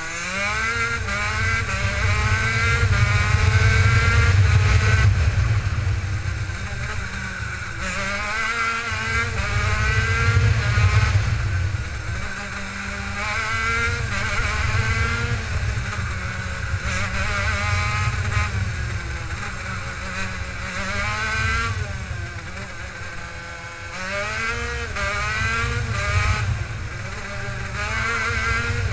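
Racing kart engine heard from onboard, revving up with a rising pitch out of each corner and falling away into the next, about half a dozen times, over a heavy low rumble.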